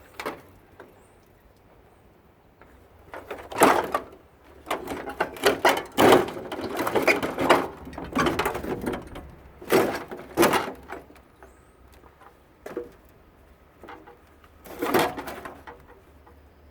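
Irregular knocks, clanks and rattles of metal parts being handled and shifted during the teardown of a tankless water heater, in several clusters with quieter gaps between.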